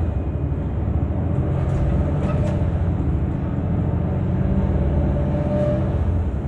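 City bus running, heard from inside the passenger cabin as a steady low rumble of engine and road noise, with a faint whine for a few seconds in the middle.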